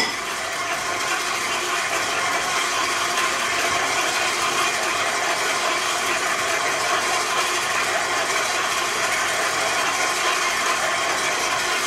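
Electric stand mixer running steadily, its beater working a crumbly streusel dough in the steel bowl.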